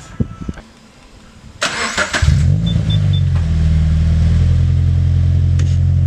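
Scion FR-S's 2.0-litre flat-four boxer engine cranked on the starter and catching about two seconds in, flaring up briefly, then settling into a steady idle. It breathes through a freshly installed Invidia N1 cat-back exhaust, giving a very deep, loud idle on a semi-cold start.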